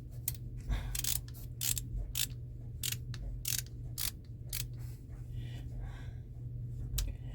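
Milwaukee ratcheting screwdriver's ratchet clicking as it is worked: a run of sharp, unevenly spaced clicks, a few each second.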